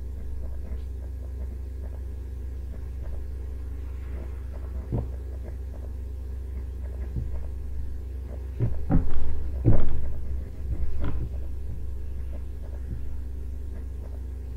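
Steady low electrical hum in the recording, with a few short knocks, the loudest two about nine and ten seconds in.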